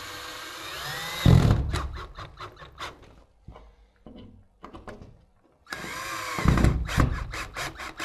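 Battery-powered drill with a Phillips bit driving the screws of an old-work wing switch box. Twice the motor speeds up with a rising whine, then gives a rapid run of clicks and knocks as the screw tightens and the wing clamps against the back of the drywall. The two runs are about four seconds apart.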